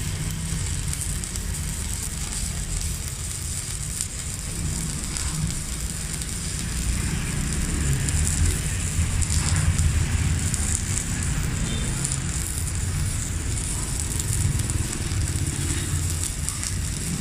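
Steady crackling and sizzling of a stick-welding arc from a Megatec mini inverter welder, with a low hum underneath.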